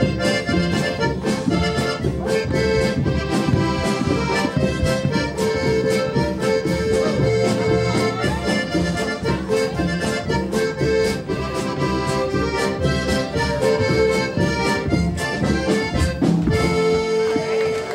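Waila band playing a dance tune: accordion lead over guitar and bass, with a steady drum beat.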